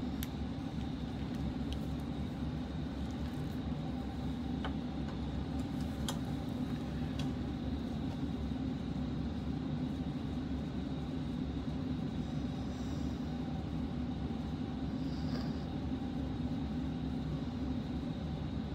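Steady low rumble of background noise with a faint high whine, broken by a few faint clicks.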